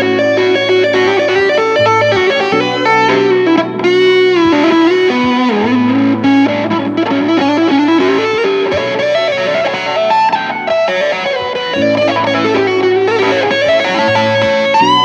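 Electric guitar played through a wet/dry amp rig of a Fender Blues Jr. and a Peavey Bandit red stripe. It plays single-note lead lines with bends and vibrato over a held low note.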